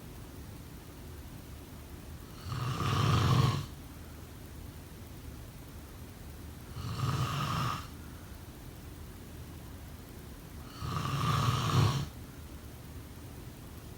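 A person snoring in sleep: three snores about four seconds apart, each lasting about a second.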